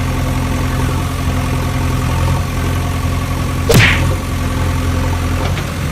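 A vehicle engine idling steadily, with one short, loud whoosh falling in pitch a little past halfway.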